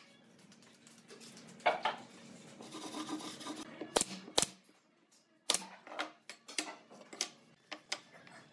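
Pneumatic brad nailer firing twice, about half a second apart, about four seconds in, driving nails through pine slats into a board. Around it, several sharp wooden knocks as the slats are set down and shifted on the board.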